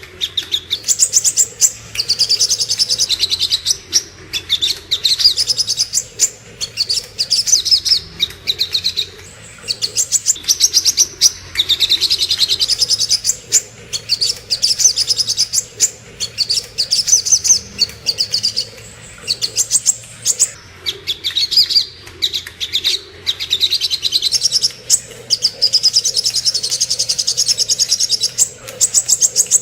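White-rumped shama (murai batu) song, played as a masteran lure or training recording: loud, rapid trilled and chattering phrases, one after another in bouts of a second or more with short pauses.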